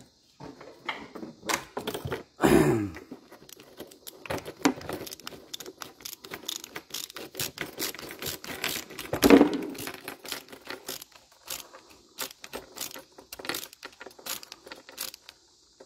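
Worm-drive hose clamp on a cam lock fitting's hose being tightened with a nut driver, with metal parts clicking and rattling throughout. There are two heavier knocks from handling the fitting, one about two and a half seconds in and one around nine seconds in.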